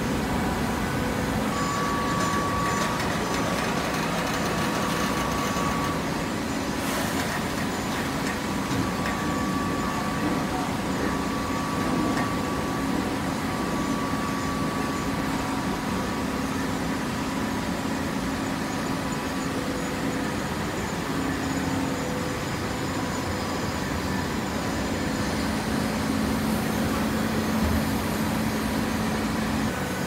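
Horizontal hydraulic baler running: a steady machine hum with a few held tones over a constant mechanical noise, some of the tones coming and going along the way.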